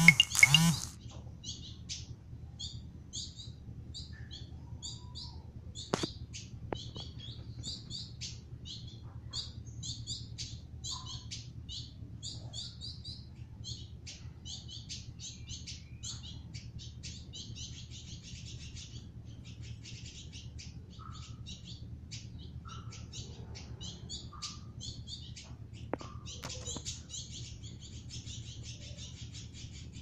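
Caged village indigobird singing: a long run of short, high chirps, with denser buzzy trills a little past halfway and again near the end. A brief loud noise right at the start, over a steady low hum.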